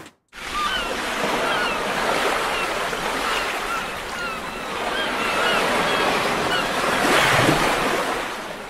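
Ocean surf: a steady rush of waves washing in, with a larger swell near the end before it fades out. Short high chirps come and go over it.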